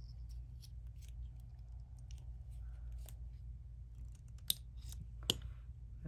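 Small clicks and ticks of beads and a wooden-handled knotting tool being handled while a knot is worked on beading cord, with two sharper clicks near the end, over a low steady hum.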